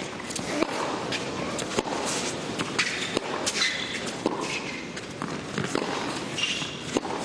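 Tennis rally: a ball struck by rackets and bouncing on a hard court, sharp hits coming about once a second.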